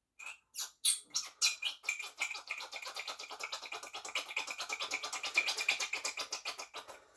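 RC car shock being pumped to drain its old oil, the shaft squelching oil and air out of the shock body in a fast run of squeaky chirps, about eight a second, which starts unevenly and then keeps up steadily.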